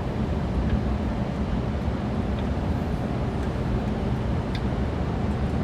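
Steady low rumbling noise, even in loudness, with a few faint ticks over it.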